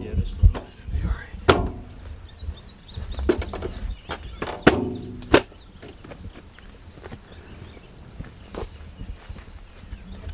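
Steady high-pitched chirring of insects in a rural field, with a few sharp knocks and some low rumble in the first half and one more knock about eight and a half seconds in.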